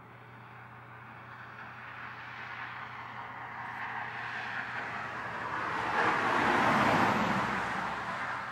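A semi-trailer truck approaching on the highway. Its tyre and engine noise grows steadily louder to a peak about seven seconds in as it draws near, then begins to ease off.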